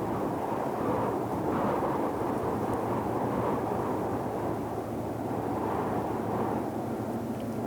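Steady deep-ocean white noise: a low, even rushing hiss with slow, gentle swells in level.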